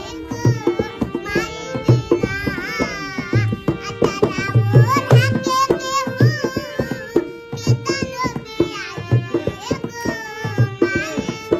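A young girl singing a Bhojpuri devotional-style song, her melody wavering and ornamented, over a steady hand-drum rhythm.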